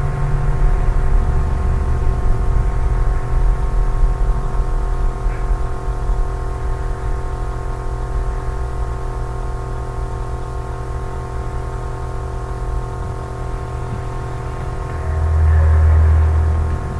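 Steady low drone with several held tones over a deep hum, swelling louder for a couple of seconds near the end.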